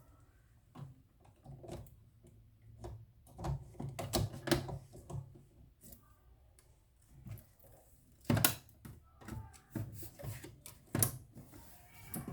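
Handling noise during an unboxing: an irregular run of clicks, taps and knocks as things are picked up and set down, with two sharper knocks about eight and eleven seconds in.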